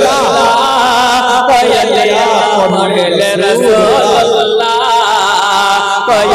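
A man chanting a naat into a microphone, holding a long wavering melodic line without clear words.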